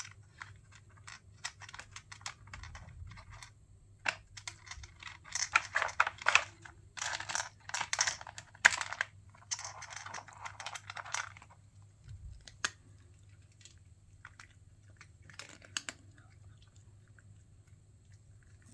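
Cats working a plastic treat puzzle toy: scattered light clicks and taps of the plastic sliders and covers, with a denser stretch of crackly clicking and crunching in the middle as treats are dug out and chewed.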